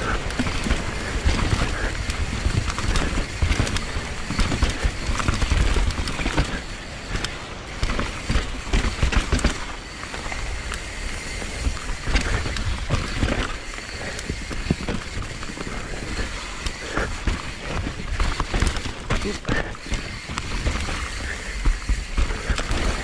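Mountain bike riding down a dirt trail: the bike rattles over the ground with many sharp clicks and knocks, over a constant low rumble.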